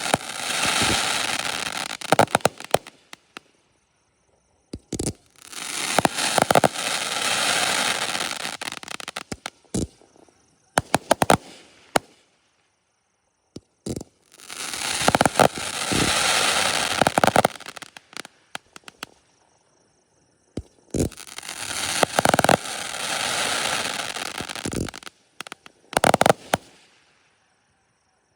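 Aerial repeater fireworks cakes going off: stretches of hissing a few seconds long, each laced with sharp cracks and crackling, in four or five separate bursts broken by sudden silences.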